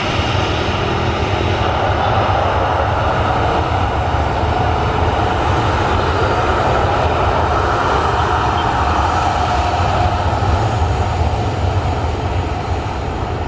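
Jet airliner's engines during takeoff: a loud, steady rumble with a hiss over it, holding level throughout.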